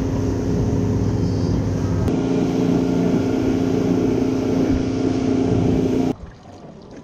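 A 300 hp outboard motor running steadily at cruising speed, pushing a center-console boat over choppy water with a rush of wind and spray. It cuts off suddenly about six seconds in.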